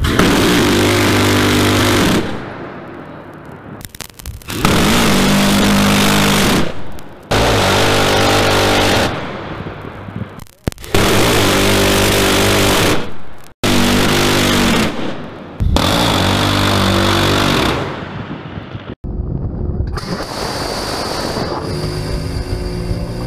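Phalanx CIWS's 20 mm six-barrel M61 Vulcan rotary cannon firing six bursts of about two seconds each. Each burst is one continuous buzzing rip, with short gaps between bursts. In the last few seconds the firing stops and a steadier, quieter rumble with a faint whine remains.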